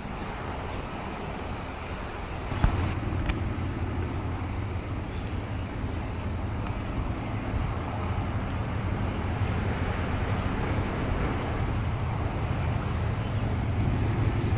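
Steady outdoor background rumble and hiss, with a sharp click about two and a half seconds in, after which the rumble grows louder and deeper.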